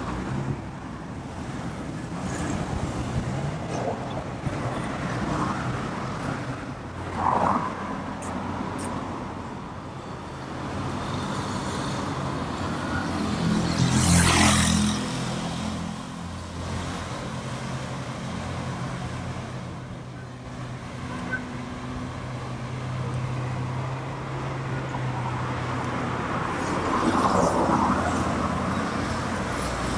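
Road traffic: motor vehicles running past, with a steady low engine hum through the middle. The loudest vehicle passes close about halfway through, and smaller passes come about a quarter of the way in and near the end.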